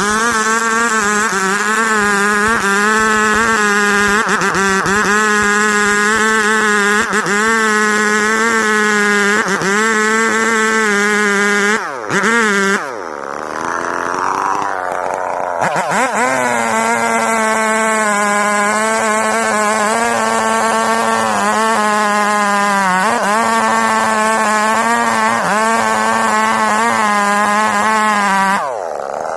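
Two-stroke chainsaw running at high revs while cutting coconut palm wood, its pitch wavering as the load changes. The engine drops off and falls in pitch about twelve seconds in, revs back up, and drops again near the end.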